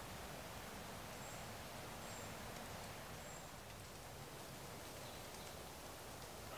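Quiet woodland ambience: a steady faint hiss, with three brief, very high chirps from a small bird in the first half.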